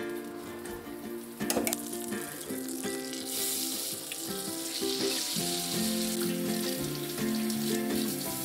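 Pork chops sizzling in melted butter in a cast iron skillet, under background music with held notes. The sizzle grows louder about three seconds in, as the meat goes into the pan.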